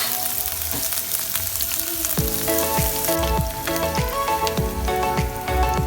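Food sizzling as it fries, under background music; a steady drum beat joins about two seconds in, and the sizzle thins out a little past halfway.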